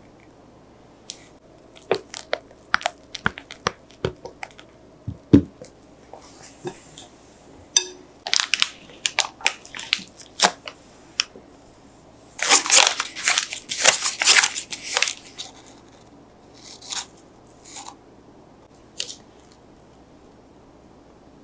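Kitchen handling noises: scattered light clicks and taps of a spatula and bowl against a glass holding a plastic piping bag, then a dense burst of plastic piping-bag crinkling about twelve seconds in that lasts a few seconds, with a few softer crinkles after.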